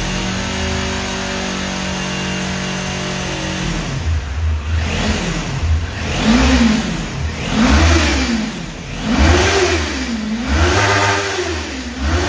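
Stock exhaust of a 2021 Kawasaki Ninja 400's parallel-twin engine, idling steadily, then from about four seconds in revved in a series of short throttle blips, each rising and falling in pitch, about every second and a half.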